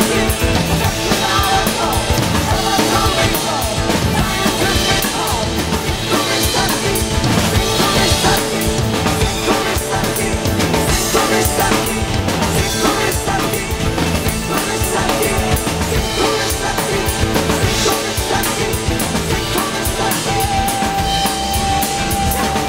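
Fast rock drumming on a large Yamaha drum kit, with bass drum and snare hits, played along to a rock band's recording.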